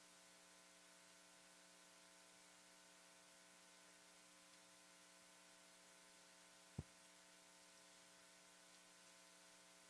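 Near silence with a steady electrical mains hum; a single short thump about seven seconds in.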